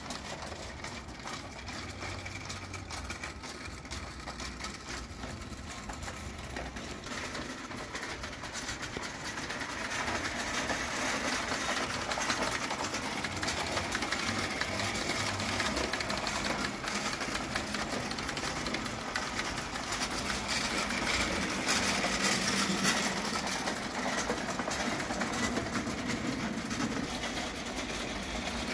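Jean Schoenner 'Storkleg' spirit-fired live steam toy locomotive running with its cars on gauge 1 tinplate track: a steady, rapid mechanical clatter from its small steam cylinders and wheels on the rails. The sound gets louder about ten seconds in.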